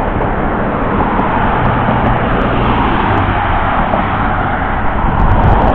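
Road traffic: cars driving past on a multi-lane road, a steady rush of tyres and engines that swells slightly near the end.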